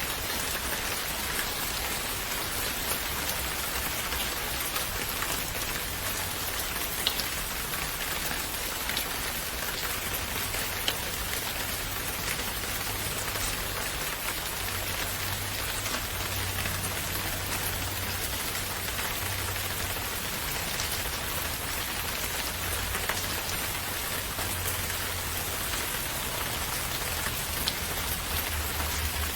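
Steady rain falling, an even hiss with scattered individual drops ticking sharply, over a low rumble that swells and fades in the bass.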